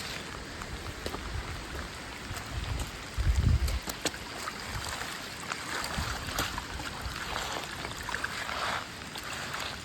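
Hurricane rain and wind: a steady wash of rain with scattered drips and patters. About three and a half seconds in, a gust of wind buffets the microphone with a low rumble.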